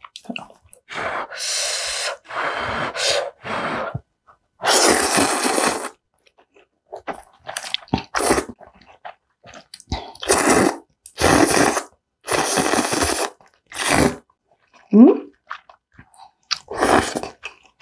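Close-miked slurping of kalguksu noodles: a series of long slurps, each about a second, with short gaps between. A brief rising vocal sound comes about fifteen seconds in.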